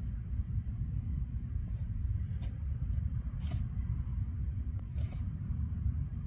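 A possum sneezing: a few short, sharp, hissy sneezes a second or so apart, the loudest about halfway through, over a steady low rumble.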